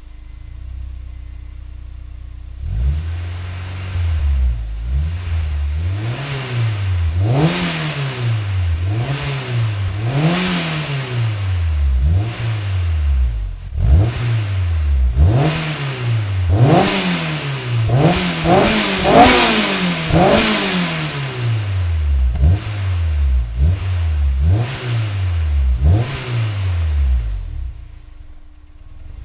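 Honda S2000's four-cylinder engine through a Tanabe Medallion Touring cat-back exhaust with dual mufflers, stock header and catalytic converter. It idles, then is revved in a long run of quick throttle blips, each rising and falling in about a second and reaching highest around the middle, and settles back to idle near the end.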